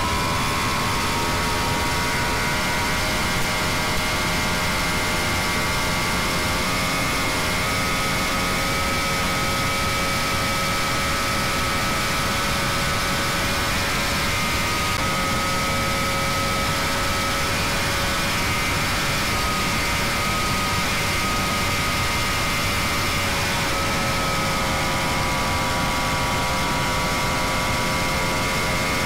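Catamaran powerboat engine running at high revs near 80 mph: a steady high-pitched drone that climbs slightly in the first second and then holds, with small dips. Wind and water rush loudly past the bow.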